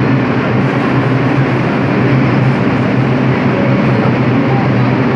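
A New York City IRT subway train (a 2 train) standing at the station platform, its equipment giving a loud, steady hum.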